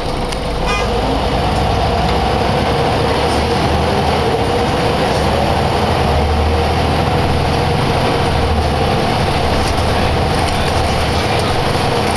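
Scania L94UB single-decker bus's rear-mounted diesel engine running as the bus drives, heard from inside the passenger saloon as a steady low hum. It gets a little louder about a second in.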